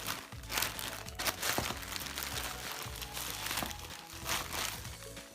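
Packaging crinkling and rustling as a smartphone box is handled and opened, over background music.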